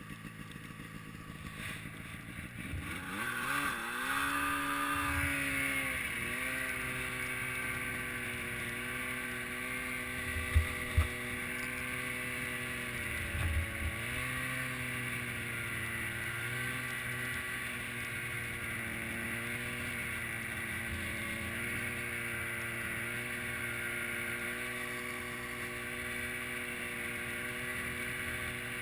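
Snowmobile engine revving up a few seconds in, then running at a steady cruising pitch with brief dips. Two sharp thumps come about ten and a half seconds in, and a smaller knock comes just before fourteen.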